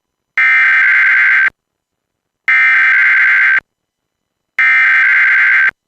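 Emergency Alert System SAME header for a required weekly test: three identical bursts of buzzing digital data tone, each about a second long and about a second apart.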